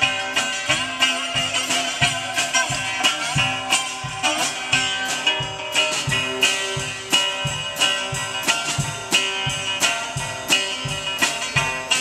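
Instrumental live blues: an archtop electric guitar playing over a drum kit keeping a steady beat.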